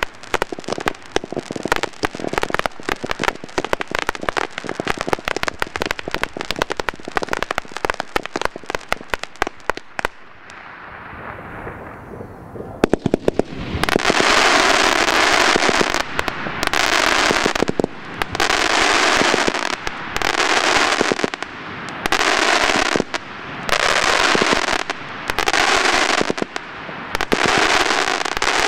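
Fireworks: a dense run of rapid crackling stops abruptly about ten seconds in, and a quieter hiss follows. From about halfway there is a string of about eight loud hissing spurts, each about a second long and coming roughly every second and a half.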